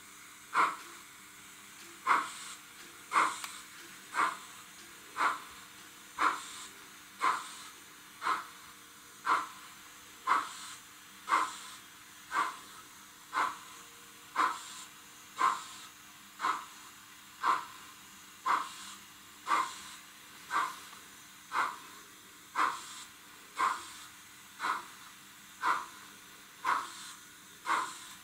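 Steam-exhaust chuffs from an H0-scale model of a Prussian G 8.2 steam locomotive, played through its sound decoder: one short hissing chuff about every second as it runs slowly, over a faint steady hum.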